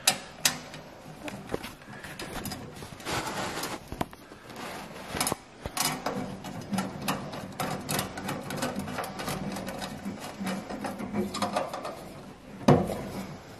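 Hand driver turning a screw into the captive nut that holds a stainless steel cap on a chimney pipe: metal scraping and clicking as the cap shifts, with a louder knock near the end.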